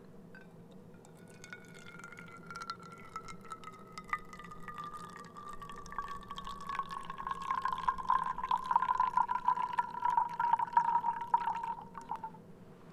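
Hot water poured in a steady stream from a kettle into an enamel camping mug, with a clear tone that slowly falls in pitch and grows louder over the second half, over splashing. The pour stops abruptly near the end.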